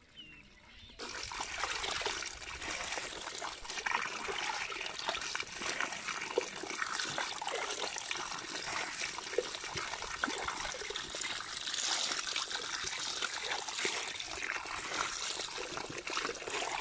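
Water streaming from a fish trap into a woven basket full of live small puti fish, which flap and splash in it. It starts suddenly about a second in and goes on as a steady splashing trickle with many small flicks.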